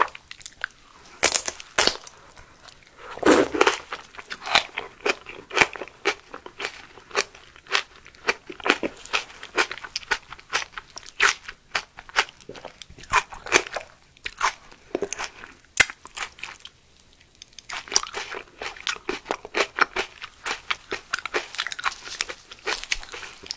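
Close-up biting and chewing of a raw aloe vera leaf, skin and all: repeated crisp crunches in clusters, with a short lull about two-thirds of the way through.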